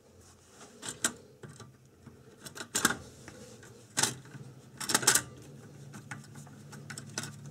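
Irregular metallic clicks and knocks as a screwdriver and the meter panel's sheet-metal bracket are handled against the amplifier's steel chassis while the panel is fitted and screwed on. The loudest knocks come about three, four and five seconds in.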